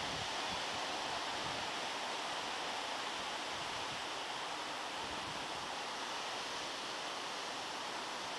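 Steady hiss of wind blowing across the open water and through the bankside grass, with no distinct events.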